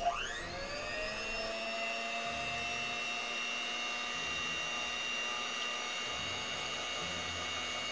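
Electric hand mixer switched on: its motor spins up in a rising whine over the first second, then runs at a steady pitch as the beaters whisk egg whites in a glass bowl.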